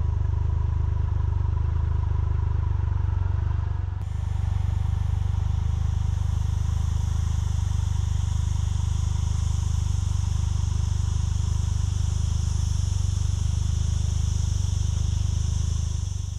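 Triumph Tiger 1200 motorcycle engine idling with a steady low rumble. There is a brief dip about four seconds in, after which a steady high hiss joins it.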